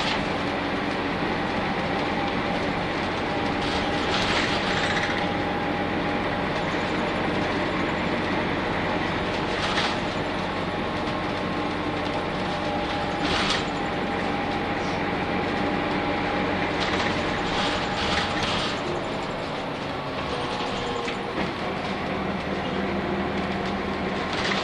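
Running sound of a Nissan Diesel UA city bus with a PU6 compressed-natural-gas engine and five-speed overdrive gearbox, heard inside the passenger cabin: a steady engine and drivetrain drone with whining tones, and occasional knocks and rattles from the body. The tones shift about twenty seconds in.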